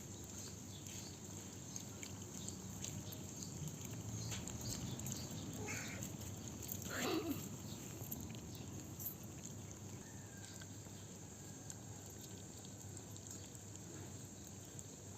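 A cat meows once, loudly, about halfway through, with a shorter, fainter call just before it. Faint scattered clicks and taps run underneath.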